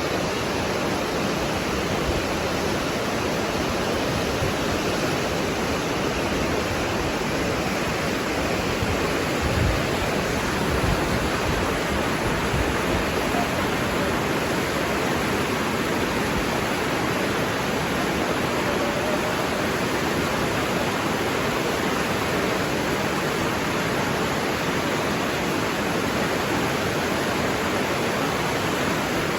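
Steady rushing water: an even, unbroken roar-like hiss that holds the same level throughout.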